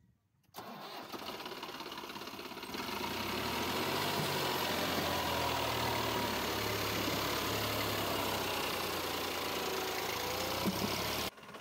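TAFE tractor's diesel engine running as the tractor works in deep mud, starting suddenly and growing louder about three seconds in. It cuts off abruptly near the end.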